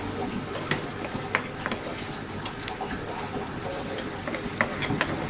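Chicken bhuna curry bubbling and sizzling in a frying pan: a steady hiss with scattered sharp pops and spatters from the thick sauce, near the end of cooking.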